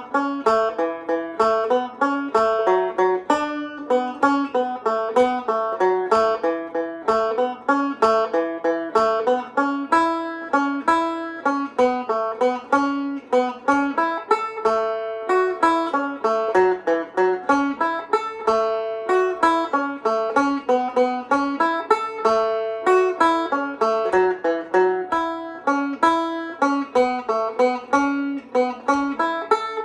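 Irish tenor banjo playing a jig in A major, solo, with quick plucked notes in a steady lilting rhythm.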